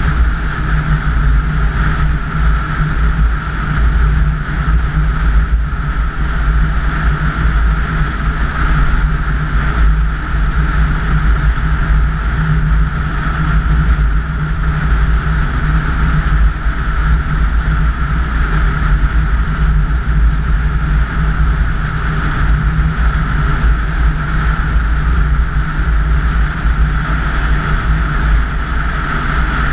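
A car driving steadily at highway speed on an asphalt road. The engine, tyres and wind blend into a constant, loud low rumble that does not change in pace.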